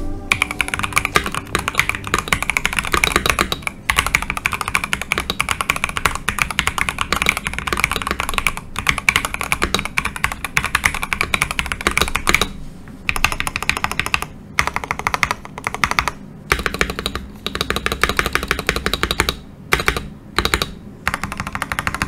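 Typing on a Nextime 75 custom mechanical keyboard fitted with Gateron Oil King linear switches and PBT double-shot keycaps, its PCB covered with two layers of tape (tape mod) to tighten the sound. Fast, steady keystrokes, broken by a few short pauses in the second half.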